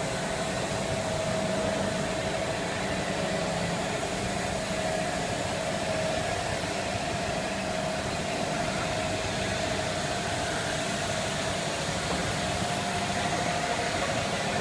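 Double-sided PE extrusion laminating machine running steadily: an even mechanical hiss and hum with a steady, slightly wavering mid-pitched whine over it.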